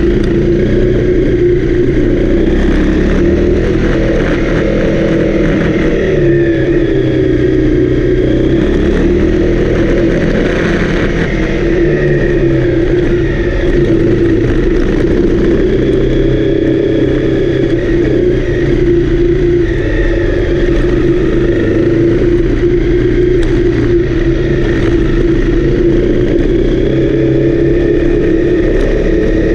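Honda CRF250L's single-cylinder four-stroke engine running while riding, its pitch rising and falling with throttle and gear changes.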